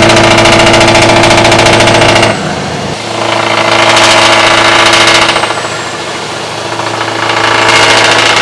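Scania Euro 5 V8 diesel truck engine running at a steady speed. Its note drops abruptly about two seconds in, swells back up around four to five seconds, fades, and comes up again near the end.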